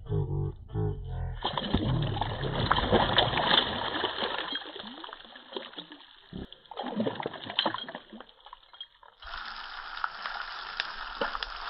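A hooked fish thrashing and splashing in shallow water, in irregular bursts. About nine seconds in it changes suddenly to fish pieces frying in oil in a pan: a steady sizzle with small crackles.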